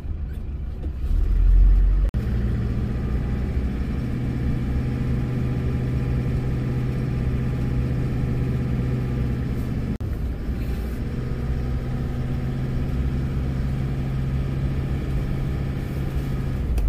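Car driving on the road, heard from inside the cabin: a steady engine drone with road rumble. It breaks off abruptly about two seconds in and again about ten seconds in, then carries on.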